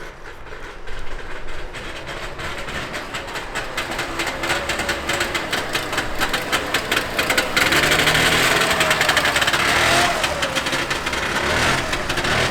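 Trabant's two-stroke two-cylinder engine running with a rapid, rattly pulse, revving and getting louder from about eight seconds in.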